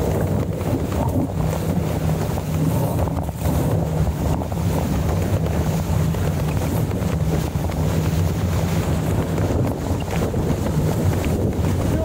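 Strong wind buffeting the microphone as a steady low rumble, with water rushing past the hull of a sailing dinghy under way.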